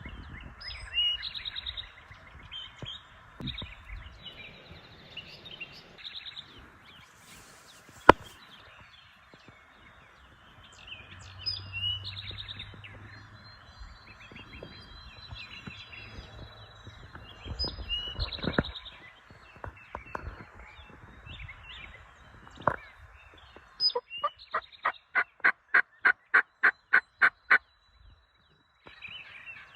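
Turkey yelping: a run of about a dozen evenly spaced notes, about four a second, near the end, with small songbirds chirping throughout. A single sharp click comes about eight seconds in.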